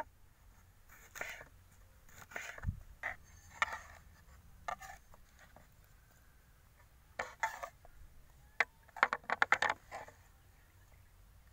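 Knife slicing tomatoes on a wooden cutting board, a few scattered cuts and scrapes. Later, hands scrape and gather the tomato pieces off the board into a clay bowl, with a quick run of small clicks and taps.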